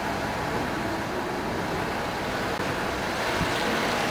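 Steady road noise of a car driving slowly, with wind on the microphone.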